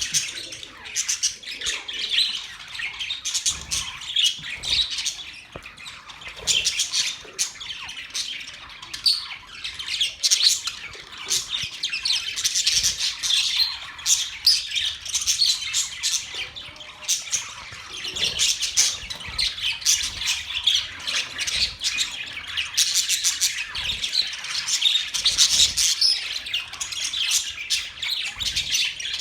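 Budgerigars chirping and chattering without pause, a dense stream of quick, high, overlapping calls.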